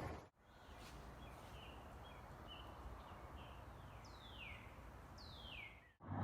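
Small birds calling faintly over a quiet outdoor background: a few short high chirps, then two clear whistles that slide down in pitch near the end.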